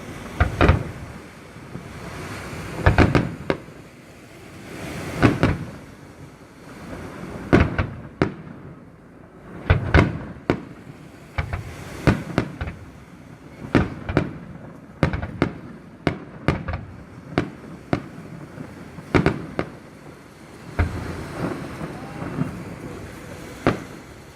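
Fireworks display: aerial shells bursting one after another, some in quick clusters of bangs and crackles, each followed by a rumbling echo.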